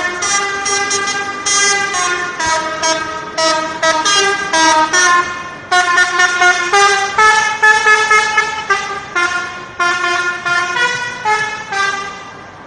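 Bus 'telolet' horn, a multi-tone musical horn, playing a quick melody of short pitched toots that change note every fraction of a second, with brief breaks; it stops near the end.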